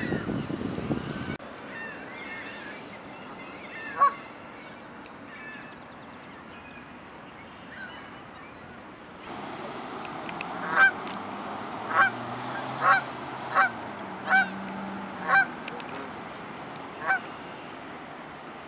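Canada geese honking: a single honk about four seconds in, then a run of about seven loud, short honks roughly a second apart in the second half.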